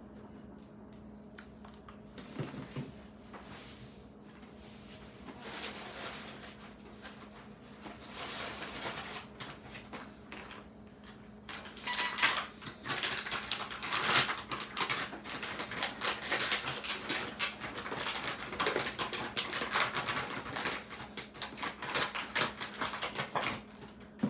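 Crinkling and rustling of a kraft paper bag with crisp clicks and rattles as dry, hard pretzels are picked off a mesh dehydrator tray and dropped in. The handling is sparse at first and becomes busy and continuous about a third of the way in, over a steady low hum.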